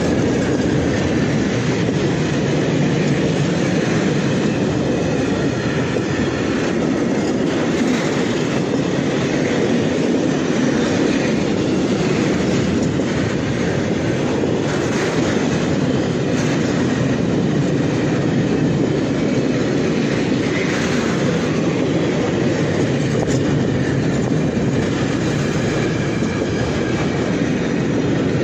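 Freight train of high-sided open wagons rolling past close by: a steady, loud rumble of steel wheels on the rails that keeps up without a break.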